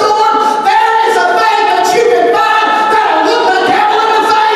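A man singing through a church PA microphone, loud, with long held notes that slide between pitches.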